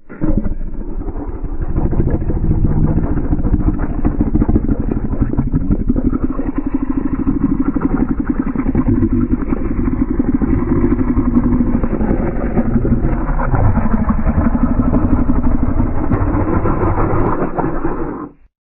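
Cartoon sound effect of a motor running with a rapid, steady putter, lasting about 18 seconds and cutting off just before the end.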